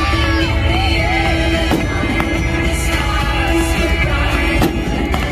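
Music with singing plays steadily throughout. A few sharp firework bangs break through it, one each around two seconds in, a little after that, and near the end.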